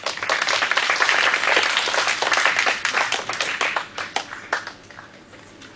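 Audience applauding. The applause breaks out all at once, stays loud for about four seconds, then dies away into a few last scattered claps.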